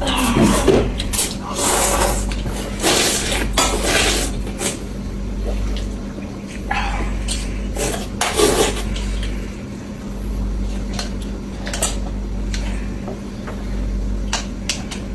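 Noodles being slurped in short noisy bursts, with chopsticks clicking against a bowl.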